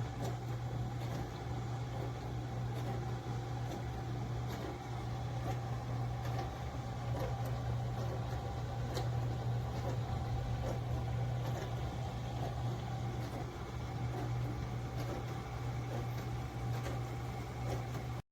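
Hermitlux tabletop dishwasher running a wash cycle: a steady low hum from its pump motor, with faint irregular taps throughout.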